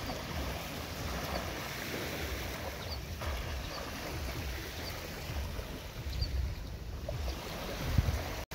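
Wind buffeting the microphone by the sea, with water washing at the shore; a short thump near the end.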